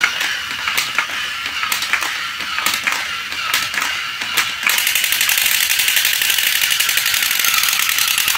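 Battery-powered crawling soldier toy figures clicking and rattling as their small motors and plastic gears drive their arms and legs across a hard floor; about halfway through a denser, faster, even rattle sets in.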